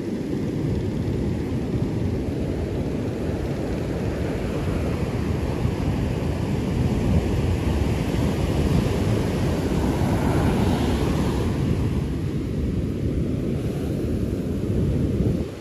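Heavy surf breaking and washing up a beach, with wind rumbling on the microphone; the wash swells a little louder in the middle.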